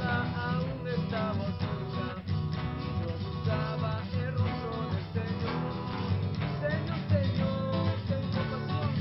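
Background music led by guitar, running steadily.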